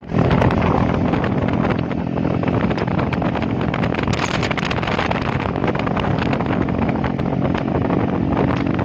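Hero Splendor motorcycle's single-cylinder engine running steadily while riding on the road, with heavy wind buffeting on the microphone.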